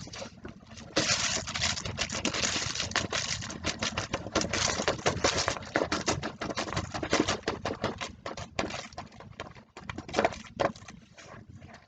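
Rapid tapping on the back of a sheet of paper, knocking loose salt grains off a glued design so that they patter and hiss onto paper below, with brief pauses.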